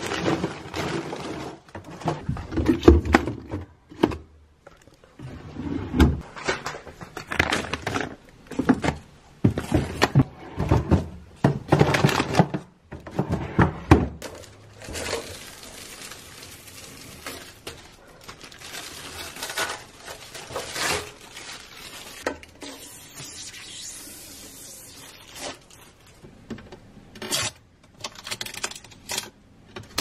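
Packaged food and plastic parts clattering and knocking in a new refrigerator's plastic drawers and door bins, with plastic bags rustling. About halfway through it gives way to a steady crinkling rustle of protective plastic film being peeled off the fridge's clear door bins, with a few knocks.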